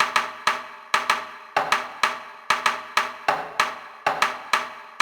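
Instrumental intro of a hip-hop beat: sharp pitched percussive hits, each ringing out, in a repeating pattern of about two to three hits a second, with no vocals.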